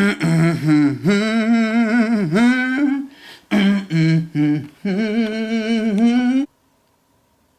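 A voice humming a slow, wordless tune in long held notes. It breaks off abruptly about six and a half seconds in.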